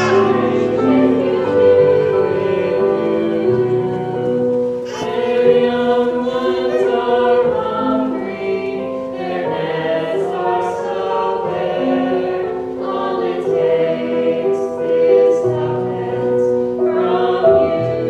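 Small vocal ensemble singing in harmony, with long held notes.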